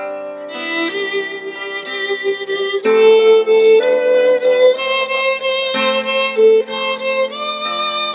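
Violin playing a slow melody of held notes over a lower sustained accompaniment.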